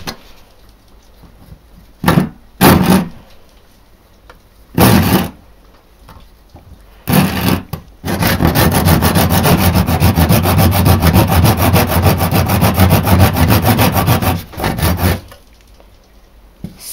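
Hand saw cutting into the leg of a small plastic Breyer Stablemate model horse. A few separate strokes come first, then about six seconds of fast, continuous back-and-forth sawing, then two last strokes. The blade gets only part way through the leg.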